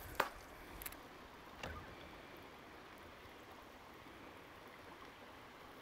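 Quiet open-water ambience: a faint steady hiss, broken by a sharp click just after the start and two softer ticks over the next second and a half.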